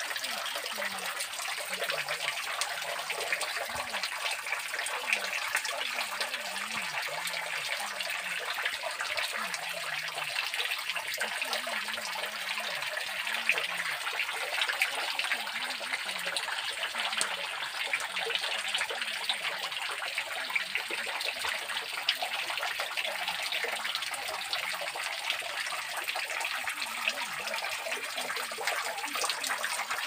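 Many thin streams of water dripping and trickling off a mossy rock overhang into a small pool, a steady splashing that stays even throughout.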